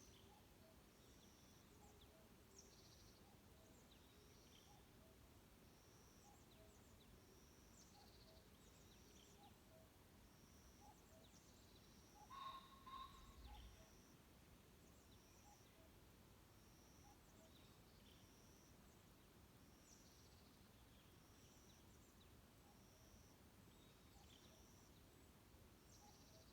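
Faint forest birdsong: a thin, high note repeated about once a second, with scattered soft lower notes beneath it. A louder double call comes about twelve seconds in.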